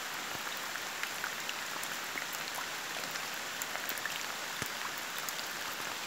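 Rain falling steadily on open water, a dense even hiss of many small drops striking the surface.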